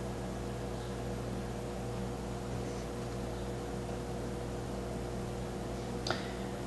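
Steady background hiss with a low electrical hum; a single faint click about six seconds in.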